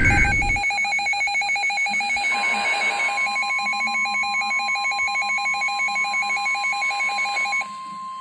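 Emergency Alert System tones from weather radio receivers: the tail of a SAME digital data burst at the start, then a rapidly pulsing two-pitch alert tone, joined about two seconds in by the steady NOAA Weather Radio warning alarm tone. The pulsing tone cuts off near the end, leaving the steady tone. The tones announce an incoming severe thunderstorm warning.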